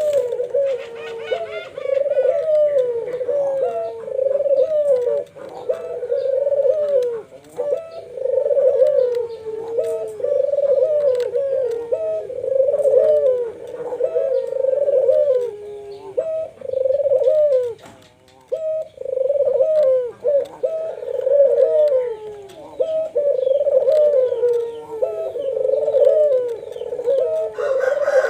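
Two puter doves (Barbary doves) cooing over and over, their phrases overlapping almost without pause, with a brief lull just before the middle. A lure recording meant to set other puter doves cooing.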